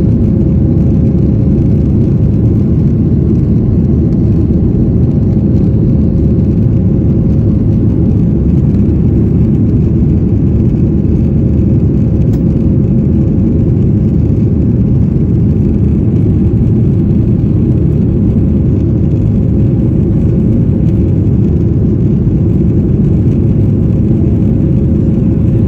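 Steady, loud cabin noise inside a flydubai Boeing 737 climbing after takeoff: engine and airflow rumble, heaviest in the low range, with a thin steady tone running through it.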